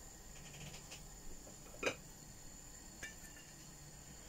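Quiet kitchen room tone with a faint steady hum, broken by one short sharp click a little under two seconds in and two fainter ticks around it.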